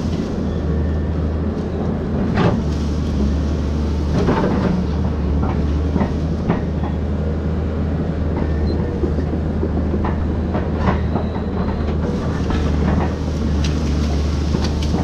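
Volvo excavator's diesel engine running steadily, with irregular sharp cracks and clunks over it as the machine clears trees.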